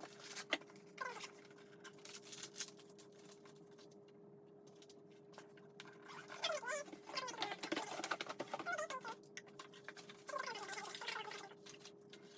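Handling of packaging: clicks and rustles, with bursts of short squeaky rubbing sounds about halfway through and again near the end, as an item is packed back into its box.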